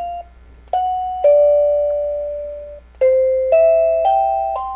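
Wireless doorbell chime playing one of its electronic chime tunes: a falling two-note ding-dong, then four notes rising step by step, each note ringing and fading.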